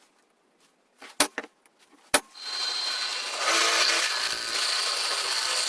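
A few sharp clicks, then a power tool starts about two seconds in and runs steadily, a noisy grinding sound with a thin high whine over it.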